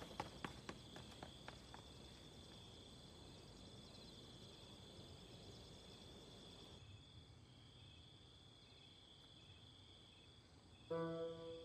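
Faint crickets chirring steadily in the night, with a few quick footsteps fading away during the first couple of seconds. A sustained brass-like music note comes in near the end.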